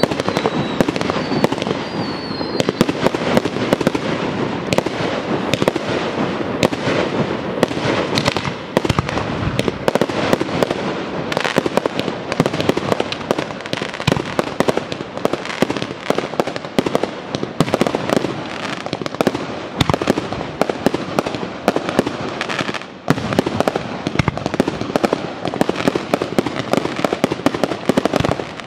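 Fireworks display: aerial shells bursting in a continuous rapid volley of bangs and crackling, with one brief dip about four-fifths of the way through.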